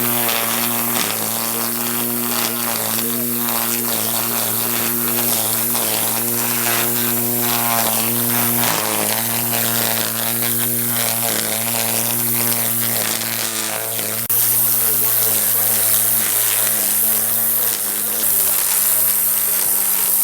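Electric string trimmer's motor buzzing steadily as it cuts grass, under background hip-hop music.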